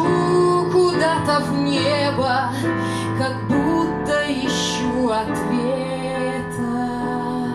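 A woman singing into a microphone while accompanying herself on a digital piano.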